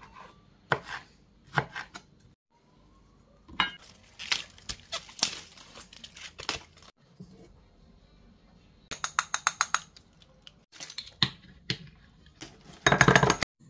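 Kitchen prep sounds in short cut-together segments: a knife cutting through tomatoes and knocking on a bamboo cutting board, then gai choy leaves handled in a stainless steel bowl. Near the end, a plastic spoon scrapes miso paste into a small bowl.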